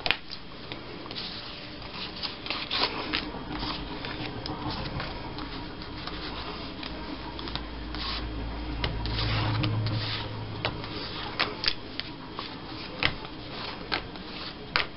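Handmade paper tags being flipped through one at a time: rustling and light slaps of cardstock sliding off a stack and being laid down on a table, in irregular strokes. A low rumble swells and fades about halfway through.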